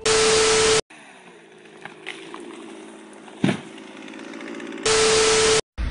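A loud burst of static with a steady beep, a clip-transition sound effect, at the start and again near the end. Between them a quieter steady hum like an idling engine runs, broken by a single sharp bang about three and a half seconds in.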